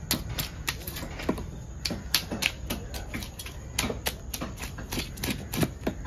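Knife scraping the large scales off a parrotfish on a wooden block: a quick, irregular run of sharp clicks and scrapes, about three a second.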